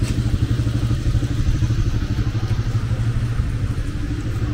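A street vehicle's engine running steadily at low revs, loud and low-pitched.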